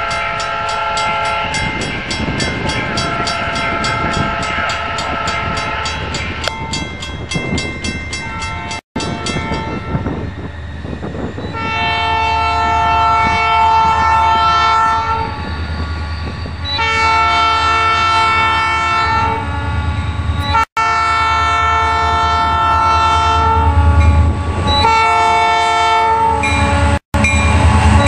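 Diesel freight locomotive's multi-chime air horn sounding a series of blasts, mostly long ones with a couple of shorter ones, over the low rumble of the locomotive and train. Three abrupt split-second gaps break the sound.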